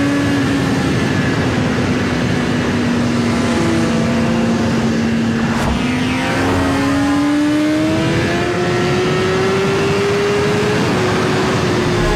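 Loud engine running with a steady whine that climbs slowly in pitch, as in acceleration. The whine falls away sharply at the very end.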